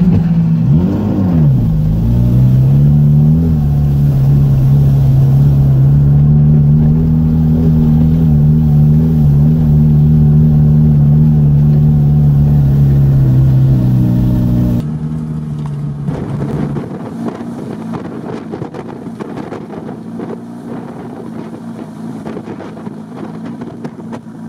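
Off-road vehicle's engine heard from inside the cab, running loud at steady revs after a quick dip and rise in pitch about a second in. About fifteen seconds in, the sound cuts abruptly to a quieter, rougher engine-and-driving noise.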